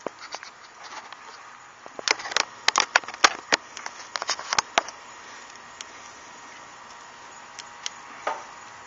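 Charcoal grill cooking iguana meat: sharp pops and clicks over a steady faint hiss, coming thick and fast from about two seconds in, then a few scattered ones near the end.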